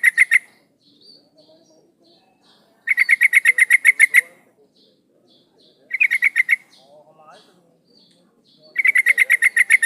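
Female yellow-vented bulbul (trucuk) calling with loud rapid chattering bursts of about ten notes a second. Each burst lasts about a second, and they come roughly every three seconds, with faint high chirps between.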